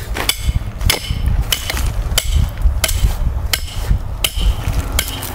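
A hammer striking the metal stake of a dog-proof raccoon trap about eight times at an even pace, driving the stake into the ground to anchor the trap.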